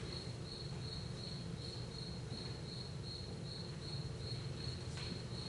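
A high-pitched chirping pulsing evenly about four times a second, of the kind a cricket makes, over a low steady hum.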